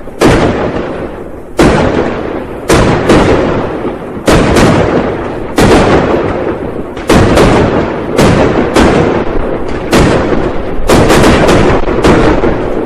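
New Year firecrackers exploding, loud bangs going off one after another at an irregular pace of about one to two a second, each trailing off in a rumbling echo.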